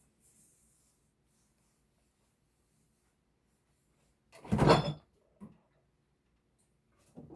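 A person belching once, loud and about half a second long, about four seconds in, with a short low vocal sound just after and more short low sounds starting near the end.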